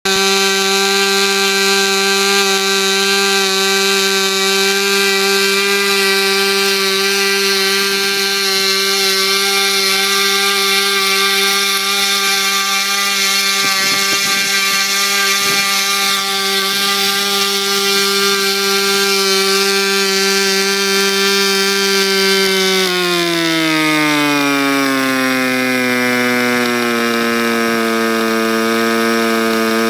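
Fox .15 model aero engine converted to diesel running with a Davis Diesel head on ether-kerosene fuel, spinning a 9x4 propeller at a steady high-speed buzz. About 23 seconds in it is throttled back through its R/C carburettor, the pitch falling smoothly over a few seconds to a lower steady speed, then it is opened up again sharply at the very end.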